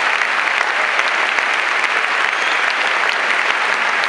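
A large stadium crowd applauding a point just played: many hands clapping in a dense, steady patter.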